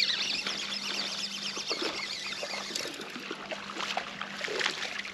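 Water lapping and trickling against a bass boat's hull while a bass is fought on rod and line, over a steady low hum that drops out briefly about three seconds in.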